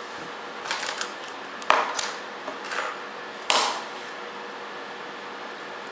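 Hands handling patch cords and a resistor on a plastic trainer board and breadboard: a handful of small clicks, knocks and rattles over a few seconds, the two sharpest in the middle, over a steady background hum.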